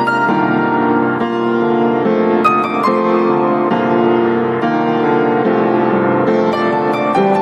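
Background piano music: held chords and a melody whose notes change every half second to a second.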